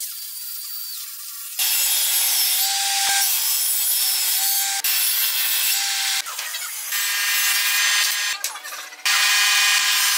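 Power tools working wood in short sections that switch abruptly from one to the next: a sanding disc on an angle grinder rubbing against a board, and a table saw cutting a hardwood strip. The sounds are loud, with steady motor hums underneath.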